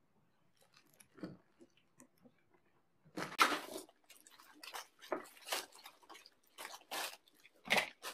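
Close-miked eating sounds: a mouthful of burger being chewed. From about three seconds in come a string of loud, crackly paper rustles as a burger in its paper wrapper is handled and opened.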